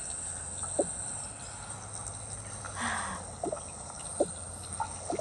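A few light, sharp clicks over a steady high hiss and a low hum.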